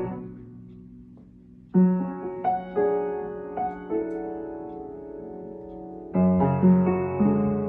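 Piano played slowly and softly. A chord dies away, and after a pause of over a second single notes and chords are struck and left to ring. A fuller chord with a low bass note comes in about six seconds in.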